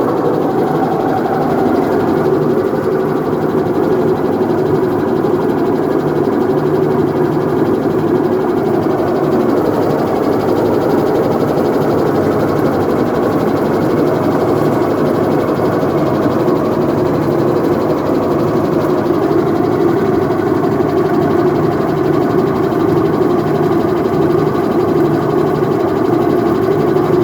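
Whirlpool top-load washing machine running with a steady, loud mechanical drone: the 'helicopter' noise fault.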